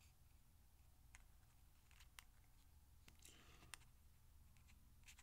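Near silence with a few faint, scattered clicks as a Kershaw Knockout folding knife's parts are fitted together by hand, its SpeedSafe assist rod being worked into the hole in the blade.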